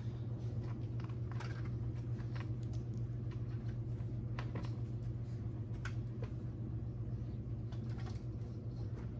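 Scattered light clicks and rustles of puppies stepping and pawing in a tray of wood-pellet litter, over a steady low hum.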